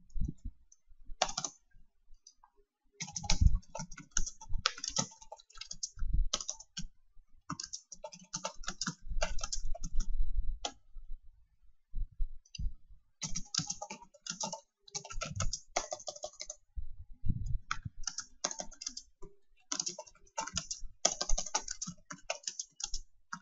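Typing on a computer keyboard: quick runs of keystrokes with short pauses, the longest a couple of seconds in and around twelve seconds in.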